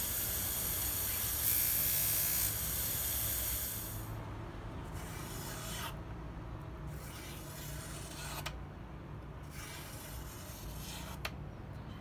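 A knife blade is held against a spinning honing wheel on a bench grinder, giving a steady hiss for about the first four seconds. Then the freshly honed blade slices through a sheet of paper in about three short rustling cuts, with a low motor hum underneath.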